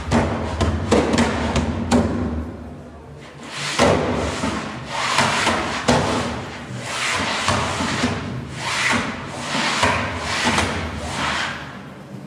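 Rubbing and scraping noises in uneven strokes, some long and some short, over a low steady hum.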